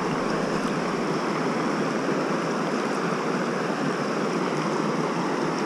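Shallow, rocky mountain river running over stones: a steady rush of flowing water.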